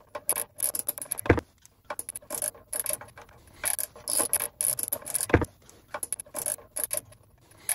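Hand socket ratchet clicking in short bursts as it is swung back and forth, undoing the engine sump bolts, with two dull knocks, one about a second in and one past halfway.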